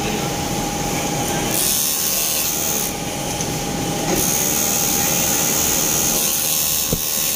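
Industrial overlock machine sewing a seam in two runs: one of just over a second starting about one and a half seconds in, and a longer one from about four seconds in. A steady hum from the machine and workshop runs underneath.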